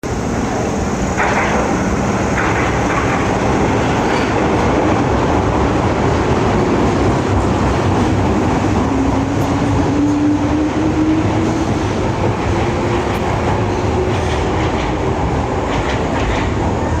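Electric train heard from inside the car: a steady rumble of wheels on rail with a motor whine that slowly rises in pitch as the train picks up speed, and a few rail-joint clacks, two of them about a second apart near the start.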